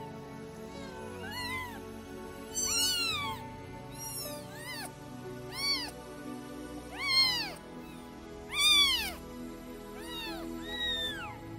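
Newborn British Shorthair kitten, two days old, mewing: about eight short, thin cries, each rising and then falling in pitch. The loudest come around the middle.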